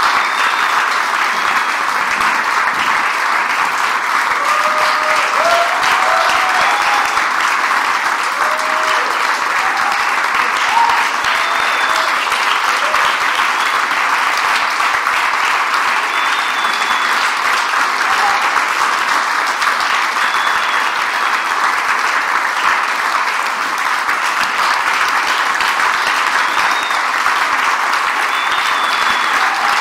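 Theatre audience applauding steadily, a dense continuous clapping, with a few voices calling out over it.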